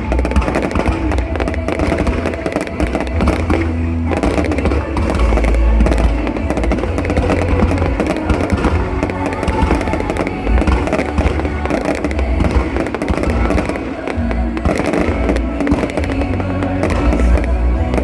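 New Year fireworks going off in rapid succession, many bangs with deep thumps, over loud music.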